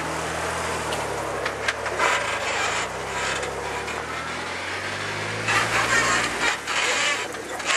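Jeep Wrangler JK's engine running under load as it crawls over rock, its pitch sinking a little partway through and then rising again before dropping off about six and a half seconds in. The rough noise of tyres grinding over rock runs beneath it, loudest near the end.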